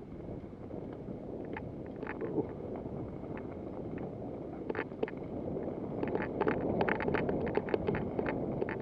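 Wind rushing over the microphone, with a run of sharp clicks and rattles that grows denser near the end.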